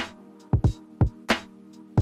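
Background music with a laid-back drum beat, kick and snare hits, over sustained chords.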